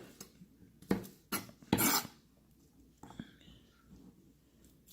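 Three sharp clacks of kitchen utensils on a hard surface, about one, one and a half and two seconds in, followed by a few faint light clinks.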